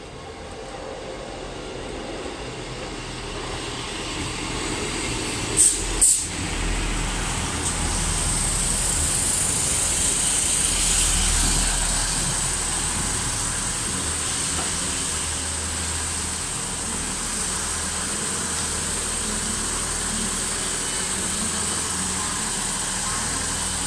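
ScotRail Class 158 diesel multiple unit, two units coupled, drawing into the platform. Its underfloor diesel engines and wheels on the rails grow louder over the first ten seconds or so, with a high thin squeal as it slows, then settle to a steady running sound while it stands. Two sharp clicks sound about six seconds in.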